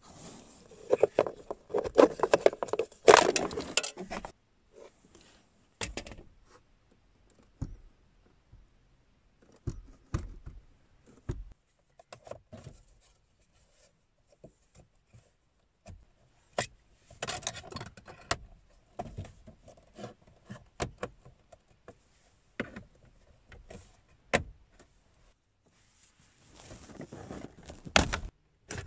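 Irregular clicks, clinks and scrapes of hand tools and plastic trim pieces being worked loose and handled as a 2006-2012 Toyota RAV4's center console is taken apart. There are busier bursts of rattling near the start, in the middle and near the end, with quiet gaps between.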